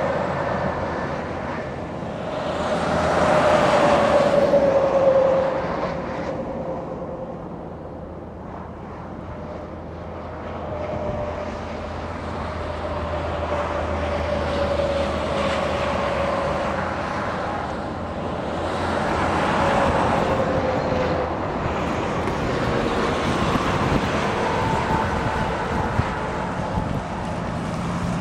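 Steady rumble of passing highway traffic, swelling twice as vehicles go by, with a thin whine that slowly falls in pitch.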